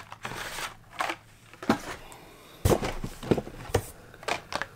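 Carded Hot Wheels die-cast cars in plastic blister packs being pulled from their cardboard shipping case and handled: a string of light clicks and knocks, more of them in the second half.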